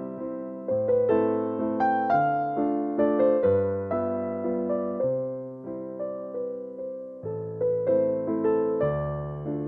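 Background music: a gentle piano melody over changing bass notes, each note struck and fading.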